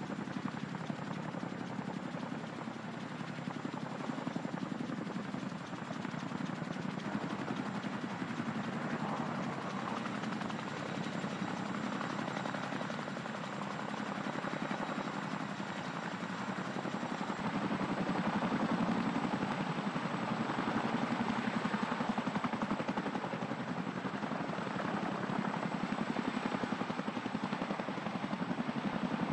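CH-47 Chinook tandem-rotor helicopter hovering low, then lifting away with an M777 howitzer slung beneath it. Its steady rotor beat carries a thin high whine and grows louder a little past halfway as it takes up the load.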